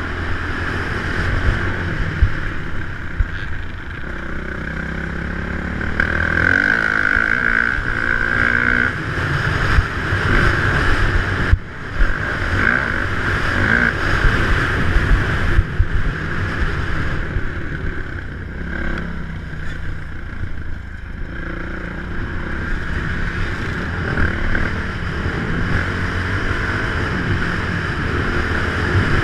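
Dirt bike engine revving up and down as the bike is ridden around a motocross track, with wind rushing over the microphone. The engine note cuts out for a moment about twelve seconds in.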